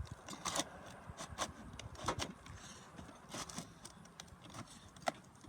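Irregular scrapes and light clicks of asphalt shingles being worked loose, their sealant strips being broken for a roof repair.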